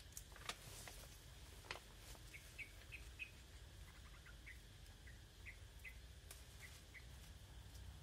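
Faint sounds: a few sharp snaps in the first two seconds as water spinach stems are broken off by hand, then a small bird's short, high chirps, about ten in a loose string.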